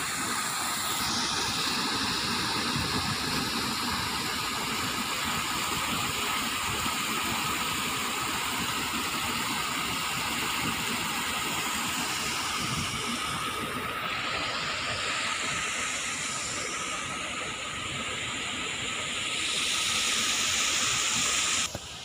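Water rushing and splashing down a small rock cascade into a pool, a steady rushing noise that drops away suddenly near the end.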